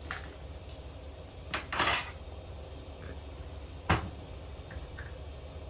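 Kitchen utensils and dishes clinking: a short clatter about two seconds in and a sharp knock about four seconds in, with a few faint ticks after.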